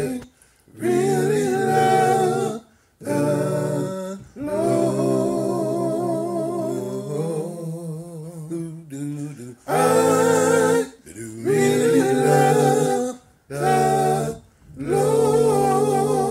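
One man's voice layered four times, singing a cappella harmony. It comes in short phrases with brief breaks between them, and one long held chord in the middle.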